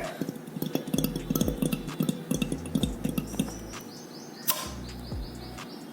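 A used automotive AC compressor being handled and turned by hand, giving a quick run of small metallic clicks and clinks in the first few seconds.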